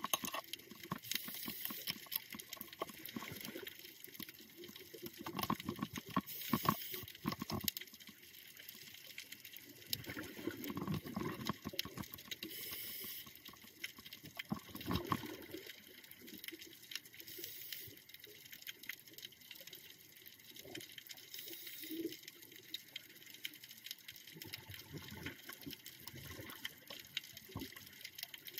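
Scuba diver breathing through a regulator underwater: a hiss with each inhalation, then a rush of bubbling exhaled air, repeating about every five seconds.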